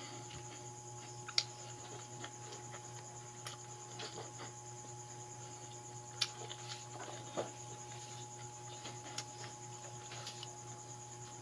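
Close-up eating sounds: a person chewing pancit noodles and fried dried fish (daing), with scattered wet mouth clicks and smacks, a handful of them sharp, over a steady low hum.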